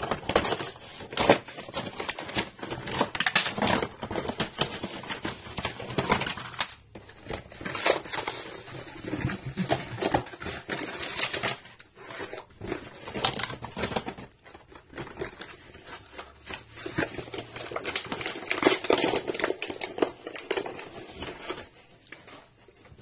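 Cardboard toy box and its packaging being opened and emptied by hand: repeated rustling, crinkling and tearing of cardboard, paper and plastic wrapping, with short knocks of plastic parts set down on a hard tabletop. It quietens near the end.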